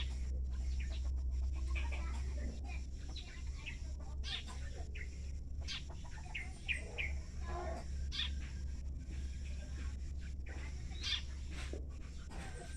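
Birds chirping, many short scattered calls, over a steady low rumble.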